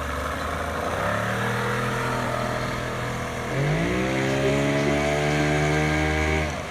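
Boat outboard motor running, then revving up about three and a half seconds in as the throttle is opened and the boat speeds away, holding the higher note before falling away suddenly near the end.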